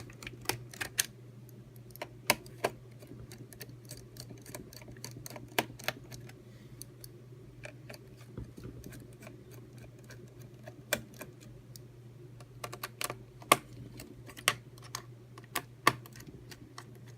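A small screwdriver working screws out of a laptop's RAM access panel: scattered, irregular clicks and ticks, a few of them louder, over a steady low hum.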